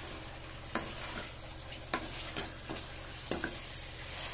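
Potatoes, peas and carrots in tomato masala sizzling in a metal kadhai while a wooden spatula stirs them, scraping and knocking against the pan several times.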